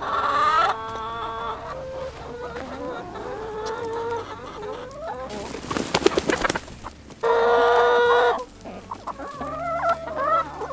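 A flock of backyard chickens clucking and calling, with several overlapping short calls and one long drawn-out call about seven seconds in.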